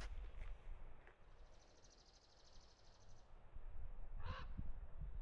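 Faint outdoor background over a low wind rumble. A high, rapidly pulsing trill lasts about two seconds in the middle, and a short harsh bird call comes about four seconds in.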